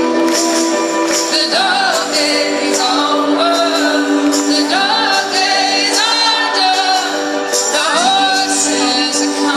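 A rock band playing live through a large outdoor PA, with a woman singing the lead over sustained chords and harp.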